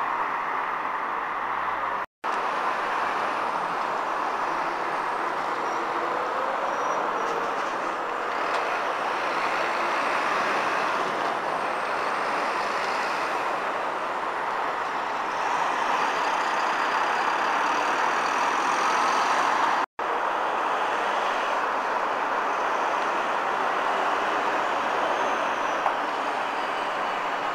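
Heavy road traffic, with articulated lorries and cars passing and turning: a steady rush of tyre and engine noise. It cuts out for an instant twice.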